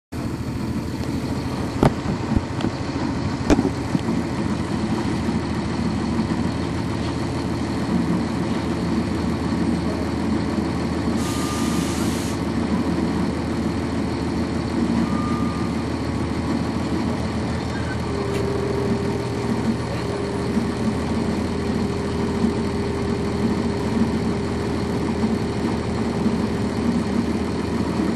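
Cummins ISC diesel engine of a 1999 NovaBus RTS transit bus running steadily, heard from on board. There are two knocks near the start and a short hiss about 11 seconds in. A steady whine joins about 18 seconds in.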